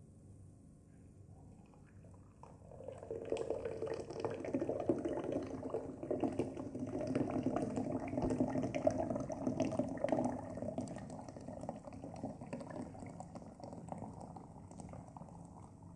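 Bandrek ginger drink poured in a thin stream into a glass mug, splashing as the mug fills. It starts about two and a half seconds in, is loudest in the middle and fades toward the end.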